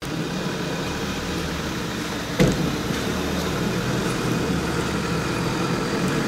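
Motor vehicle engines running steadily, cars and a truck or bus, with one sharp knock about two and a half seconds in.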